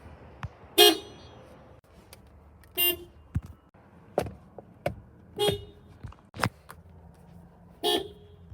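Four short car horn beeps, each a brief single note, a couple of seconds apart, with sharp clicks in between.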